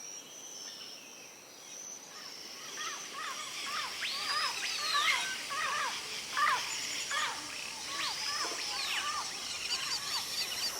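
Several birds calling outdoors: many quick short chirps, with two long whistles that rise and fall, about four and eight seconds in, over a faint steady high-pitched background. The sound fades in over the first couple of seconds.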